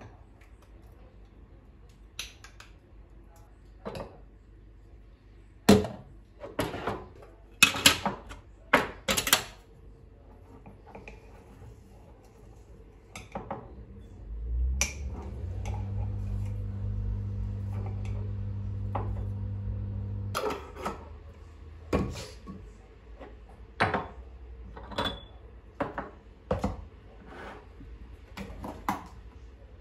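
Dishes and cutlery clinking and knocking as they are handled and set down, in a string of separate sharp clinks. About halfway through, a steady low hum starts and runs for roughly six seconds, then stops suddenly.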